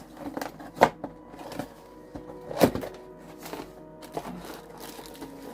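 Background music with held tones, broken by two sharp knocks, one about a second in and a louder one near the middle, as the parts of a nail table's dust collector are handled.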